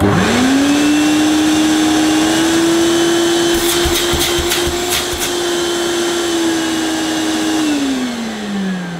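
Hoover Celebrity S3201 QS canister vacuum cleaner switched on at high speed: the motor whines up to speed within a second and runs steadily, with a few sharp clicks about halfway through. Near the end it is switched off and winds down in a falling whine. The owner worries that the motor sounds dry.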